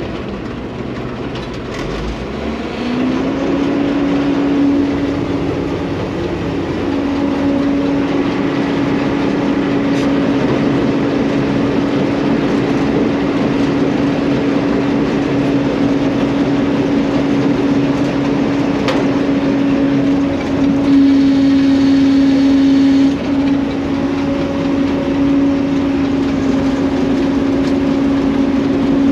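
John Deere combine harvester's threshing machinery being switched on over the running engine: a hum rises in pitch about two to three seconds in as the mechanism spins up to speed, then holds as a steady, loud mechanical hum.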